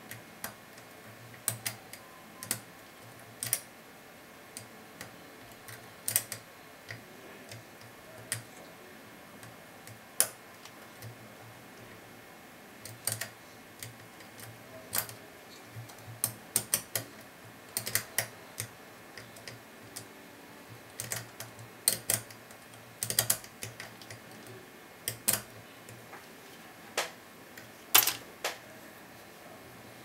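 Lock pick and tension wrench clicking irregularly inside the pin cylinder of a Vachette V136 lock (V5 system, five pins including anti-pick security pins). The clicks are sharp and metallic, sometimes in quick clusters of two or three.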